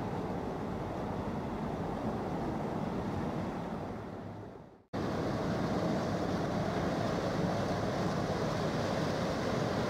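Outdoor riverside noise with wind on the microphone: a steady rushing with no engine tone or rhythm in it. About four and a half seconds in it fades to a moment of silence, then cuts straight back in.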